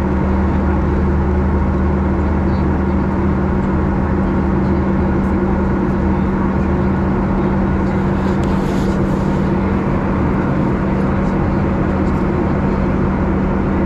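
Steady cabin noise inside a Boeing 737 in flight: the engines' even drone and rushing airflow, with a constant low hum.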